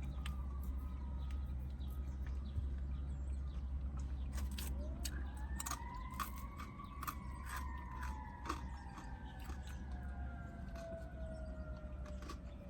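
An emergency-vehicle siren wails in the distance, swelling and rising about five seconds in, then falling slowly in pitch. Over it come close crunchy chewing and biting sounds of someone eating.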